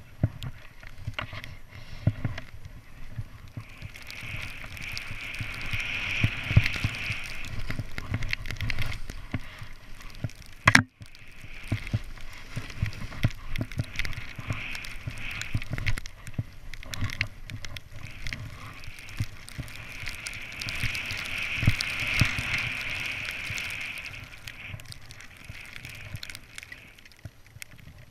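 Snowboard sliding through deep powder snow: a swishing hiss of board and snow that swells and fades over several seconds at a time, with frequent small knocks and one sharp thump about eleven seconds in.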